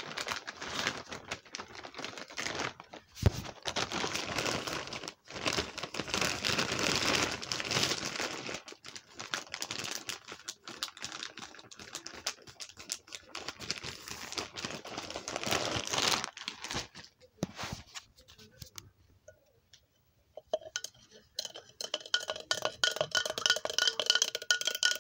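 Plastic zip-top bag crinkling and rustling as it is handled, with small clicks and knocks, probably as a knife is worked inside it. The rustling dies away after about 17 seconds, and in the last few seconds faint steady pitched tones are heard.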